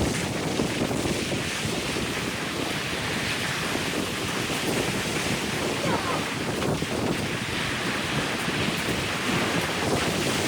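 Wind blowing across the microphone over the steady wash of ocean waves.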